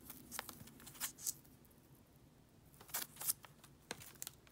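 Faint, scattered clicks and light rustling of trading cards being handled as one is put aside and the next picked up.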